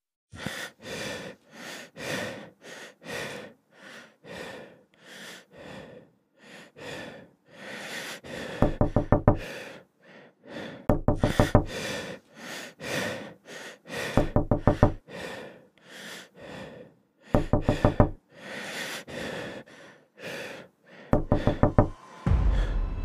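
Rapid knocking on a wooden door in five short bursts of about a second each. Between the bursts, heavy gasping breaths come about twice a second.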